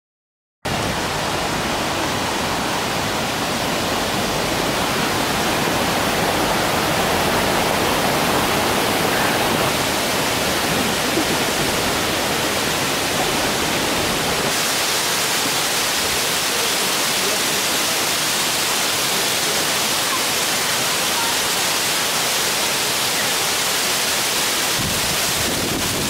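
Oshinkoshin Falls, a large waterfall, rushing steadily. It starts abruptly about a second in, and about halfway through the sound turns brighter and hissier, the spray of the falls heard up close.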